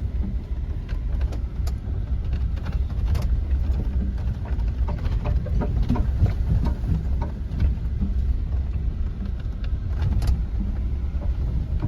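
Jeep driving over a rough dirt road: a steady low rumble with frequent small knocks and rattles.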